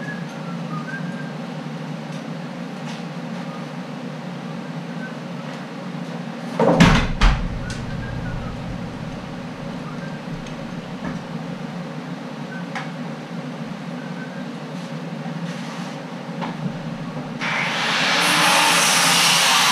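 Steady background hum on a framing job, with two loud knocks of framing lumber being handled about seven seconds in. Near the end a power tool starts up and runs loudly.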